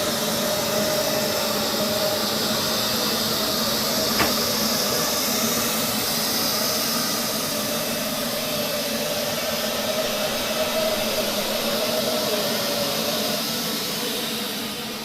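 Robot vacuum cleaner running: a steady whir and hiss from its suction motor with a faint whine, one short click about four seconds in, growing quieter near the end.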